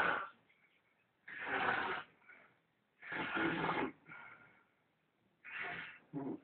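Snoring: a run of loud snores, each under a second long, coming about every one and a half to two seconds, with the last two close together near the end.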